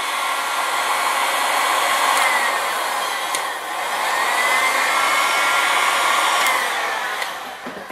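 Electric heat gun running, a steady blowing rush with a fan whine, aimed at heat-shrink tubing over a soldered wire joint. The whine dips and comes back up about halfway through, and the sound winds down near the end.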